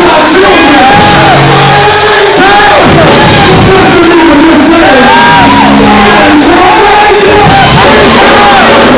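A preacher shouting and chanting in a sung, rising-and-falling cadence into a microphone, over loud backing music.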